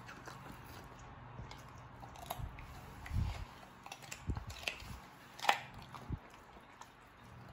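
A dog chewing chunks of broccoli stem, with scattered irregular crunches and bites; the loudest crunch comes a little after the middle.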